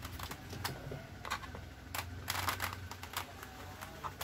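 Scattered light clicks and taps, with a short scratchy rustle about two and a half seconds in, from hands working a sheet of plastic LCD polarizer film with a knife.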